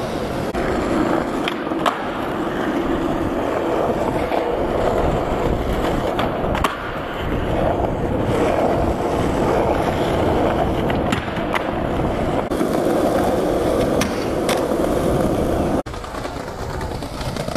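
Skateboard wheels rolling steadily over rough tarmac and concrete, with sharp clacks every few seconds as the board's tail pops and the board lands.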